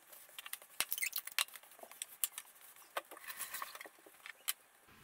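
Kitchen things being handled and set down on the worktop: a scatter of light clicks, knocks and clinks, some of them glass, with a faint rustle in between.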